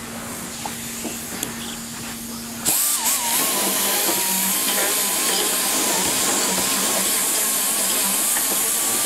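Die grinder with a burr bit starting up about three seconds in and then running steadily as a hiss with a whine that wavers slightly, grinding out old plastic weld to ream the hole for a hot tub's jet receptacle.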